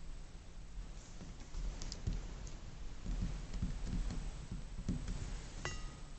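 Soft knocks and faint clicks of hands pressing and flattening a ball of Sculpey polymer clay against a desktop, with a brief squeak near the end.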